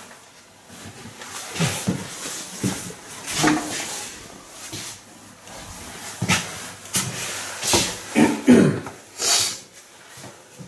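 Footsteps, knocks and rustling as people walk through a house, roughly one step-like knock a second, loudest about eight to nine and a half seconds in.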